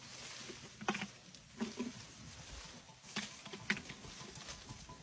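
Elephant's trunk rustling through grass and leaves close by, with a few short brushing and snuffling sounds.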